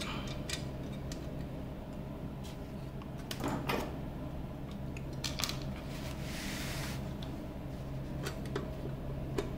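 Small screws and a screwdriver clicking, tapping and scraping against a metal chassis panel as the last screws are fitted, with a scrape lasting about a second near the middle. A steady low hum sits underneath.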